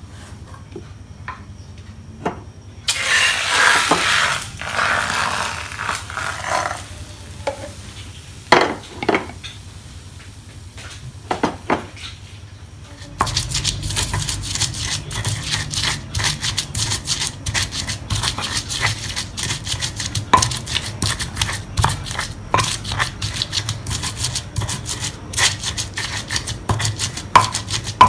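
A silicone spatula scrapes and taps in a frying pan as a thin egg sheet is turned, with a few separate knocks. About halfway in, this cuts to a stone pestle grinding red chillies and garlic in a stone mortar: a steady run of rapid crushing and scraping strokes.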